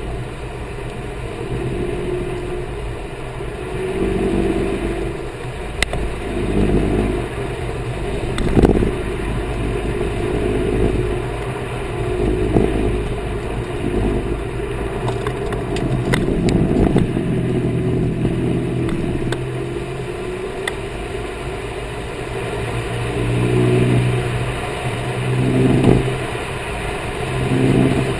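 2010 Corvette Grand Sport's 6.2-litre V8 and drivetrain heard while driving, rising and easing in level several times, with a few sharp clicks. Mixed in is a noise from the rear of the car that grows louder in right-hand turns and varies with speed; its cause is not known.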